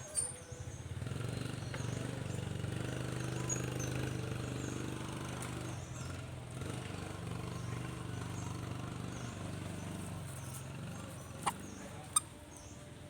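An engine running steadily with a low hum, its pitch shifting slightly near the end, with faint high chirps over it and two sharp clicks near the end.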